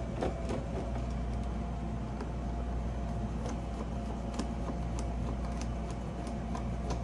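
Steady hum of a running Manitowoc ice machine, with a thin steady tone over a low drone. Faint irregular clicks of a screwdriver turning out the screws along the top of its front panel.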